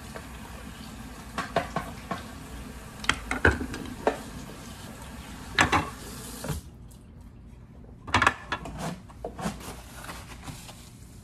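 Tap water running into a sink while plastic lens trays and an eye model are rinsed, with knocks and clatters of the plastic pieces against the basin. The water stops a little past halfway, and more clatters follow as the pieces are handled.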